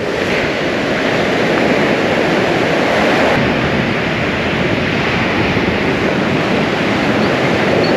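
Surf breaking and washing up a sandy beach, mixed with strong wind buffeting the microphone: a steady, loud rushing noise.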